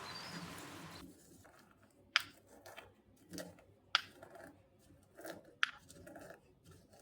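Background music fading out, then three sharp clicks spaced a little under two seconds apart, with soft rustling handling noises between them.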